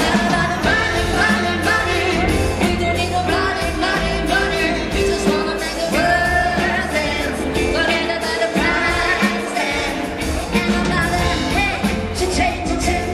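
Live band playing a song with a lead singer, loud over the stage speakers, with a steady bass line underneath.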